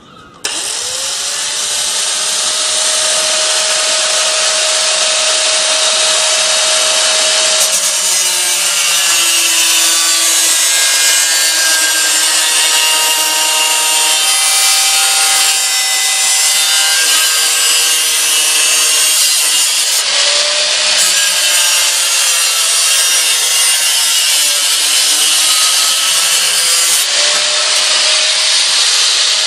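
Angle grinder switched on about half a second in, running up to a steady whine, then cutting through metal from about eight seconds in. Its whine sags and recovers as the disc bites, around twenty and again twenty-seven seconds in.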